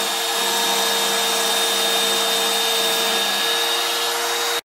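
1-horsepower router motor on a CNC router running at a steady speed while its end mill cuts a 6 mm deep slot in PVC in a single pass without bogging down. The sound is a steady high whine over a rush of noise, and it cuts off suddenly near the end.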